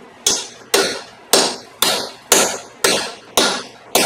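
Hammer striking half-inch steel rebar against a steel snowblower skid shoe, eight even blows about two a second, each ringing briefly.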